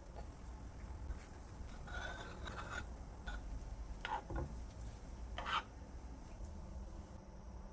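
Faint rubbing and scraping of objects being handled, with a few short scrapes about two, four and five and a half seconds in, over a low steady hum.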